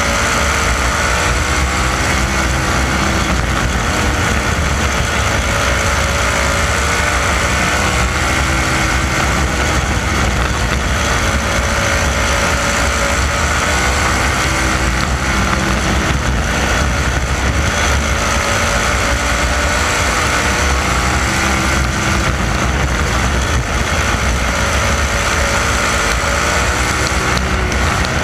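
360 sprint car's V8 engine running flat out around a dirt oval, heard from a camera mounted on the car. The engine note rises and falls as it goes through the turns and down the straights.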